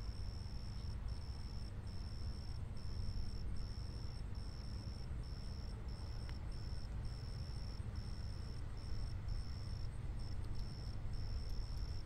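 An insect trilling: a high, steady, unchanging tone broken by brief gaps, roughly one long pulse every 0.7 s, over a steady low rumble.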